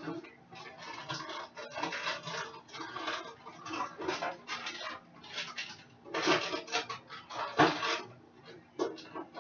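Kitchen handling sounds: irregular rustling and clattering as packages and kitchenware are moved about, with sharper knocks about six, seven and a half and nine seconds in. A faint steady low hum runs underneath.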